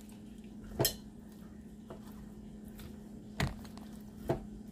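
Three light knocks of kitchenware being handled at a crock pot, over a steady low hum.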